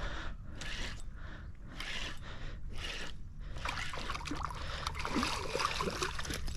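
A hooked queenfish being reeled in and brought up to the angler, with rhythmic rustling surges about every half-second to second, turning busier with watery sounds in the second half.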